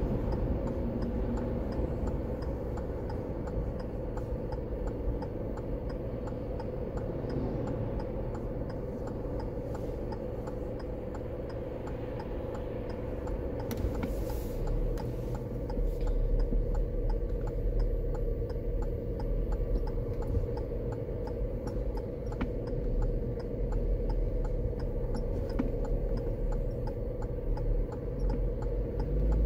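A car's turn-signal indicator ticking steadily inside the cabin while the car sits idling at a stop, over a low hum and rumble that grows near the end.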